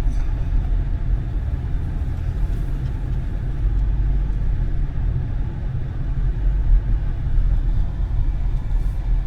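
Vehicle driving uphill on a snowy road: a steady low rumble of engine and road noise.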